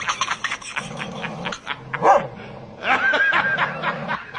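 A dog yipping and whining in short calls, with a brief rising yelp about two seconds in and a held high whine about a second later.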